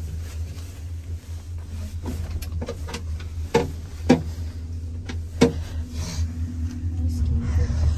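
Steady low hum inside a moving cable car gondola, with several sharp knocks and clicks through the middle, three louder ones about a second apart.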